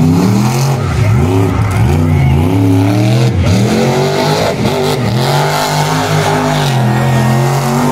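Monster truck engine revving hard, its pitch rising and falling several times as the throttle is worked, then holding a steady high note for about two seconds near the end.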